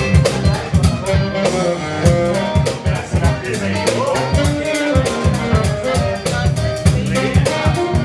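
Live funk band playing: drum kit keeping a steady beat, bass guitar, electric guitar and saxophone together.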